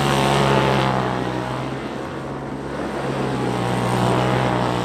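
Side-by-side UTV engine held at high, steady revs while the machine spins in circles on dirt, its tires churning up dirt with a constant hiss. It gets louder about half a second in and again near the end as it swings closer.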